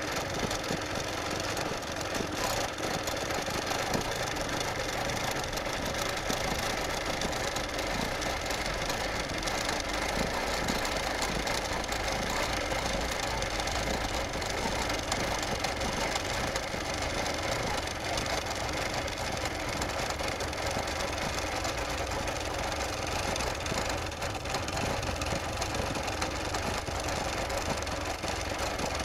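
Longarm quilting machine running steadily, its needle stitching rapidly as the quilt is guided along a curved line.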